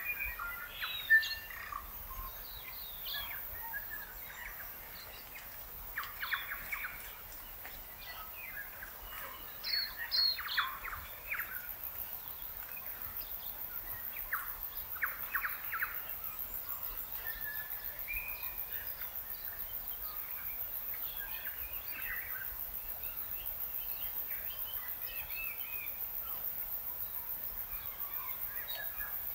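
Wild birds calling and chirping in short, scattered phrases, busiest in the first half. From about twelve seconds in, a faint, fast-pulsing high hiss joins them.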